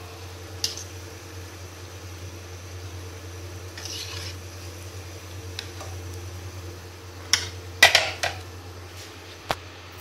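Metal slotted spoon clinking and scraping against a frying pan and serving tray as fried donuts are lifted out of hot oil, a few sharp knocks with the loudest cluster about eight seconds in. Under it, oil sizzles faintly over a steady low hum.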